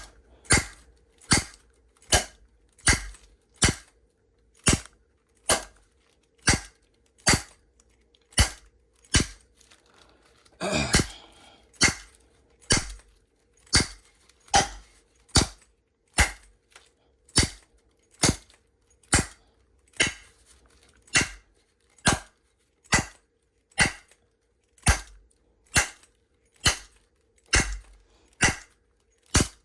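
A block of wood striking a McNally Disecu padlock again and again, a sharp knock a little more than once a second in an even rhythm, in an attempt to make the lock fail. A person coughs once about eleven seconds in.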